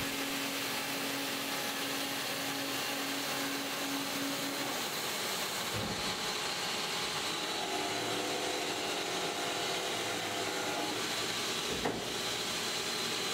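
Amada HPSAW310 CNC bandsaw cutting through an 8-inch diameter 1045 steel round bar under coolant: a steady hiss with a held tone. About five seconds in the blade finishes the cut and the tone stops, and the machine runs on with a different steady hum and a click near the end.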